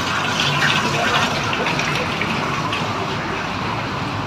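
Water from a fountain pouring steadily over the rim of a round basin and splashing into the pool below.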